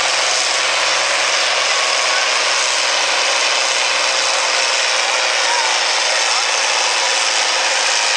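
International Harvester farm tractor's diesel engine running hard and steady under full load as it pulls the weight-transfer sled down the track.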